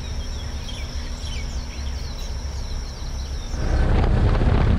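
Outdoor ambience: a steady high insect drone with scattered bird chirps over a low wind rumble. About three and a half seconds in, it gives way to a louder, low rushing rumble.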